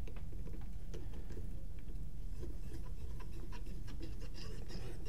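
Allen key turning a screw into a paintball marker's frame: faint, irregular light ticks and metal rubbing over a steady low hum.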